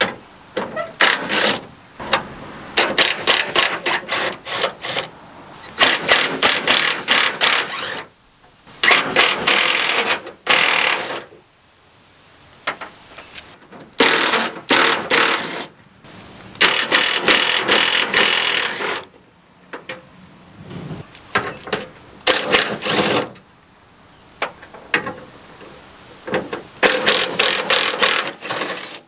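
Cordless impact driver hammering in repeated bursts of a second or two, about ten in all with short pauses between, as it backs out the bolts holding a pickup's bed side.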